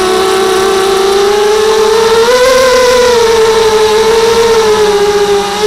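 Brushless motors and propellers of a 230mm FPV racing mini quadcopter in flight, heard close up from its onboard camera: a steady, loud whine that rises in pitch about two seconds in as the throttle comes up, then holds.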